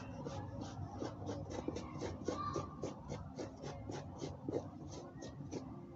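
Old toothbrush scrubbing the dry suede of a red Vans shoe in quick, even scratchy strokes, about four to five a second, brushing it down to loosen leftover dirt before the suede spray goes on.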